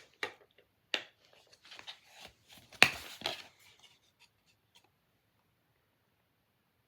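Plastic DVD cases being handled: a few sharp clacks and scraping, rubbing sounds, the loudest clack near three seconds in, then quiet after about five seconds.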